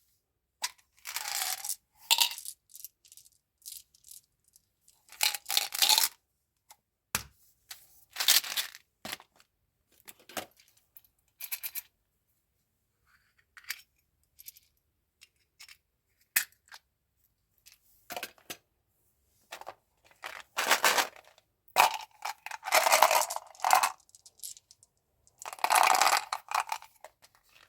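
Mentos candy packaging and candies handled up close: repeated bursts of rustling and clattering, like hard pieces knocking together, separated by short pauses and single clicks.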